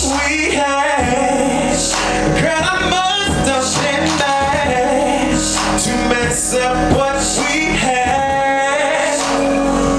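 A man singing live with musical accompaniment, amplified through stage loudspeakers, with long held notes that waver in pitch.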